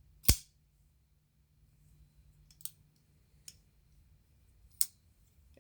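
Asher Spiro folding knife blade flicked open with a sharp click as it snaps out and locks, followed by a few fainter clicks from handling the knife near the middle and near the end.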